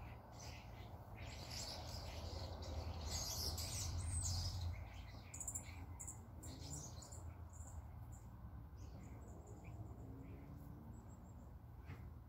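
Birds chirping: short high calls scattered through, over a steady low rumble.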